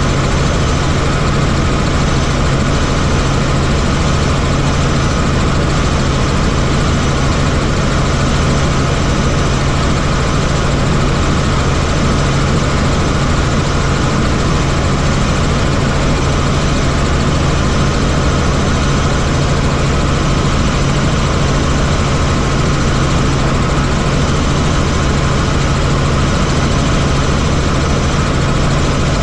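Helicopter in flight: steady, loud engine and rotor noise with a strong low hum.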